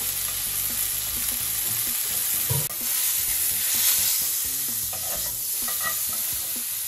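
Beef tenderloin searing in hot olive oil in a frying pan, a steady loud sizzle: the sound of a pan hot enough for a good crust. About two and a half seconds in there is a brief knock as the meat is turned with metal tongs.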